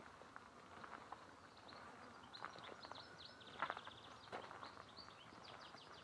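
Faint, irregular footsteps on a dirt path, with small birds chirping: a run of short high chirps and a brief rapid trill in the middle.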